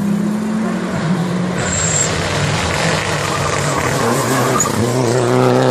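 Turbocharged four-cylinder engine of a Mitsubishi Lancer Evolution rally car driven hard as it passes at speed, with a loud rush of engine and tyre noise. Near the end the engine note climbs steadily as it accelerates.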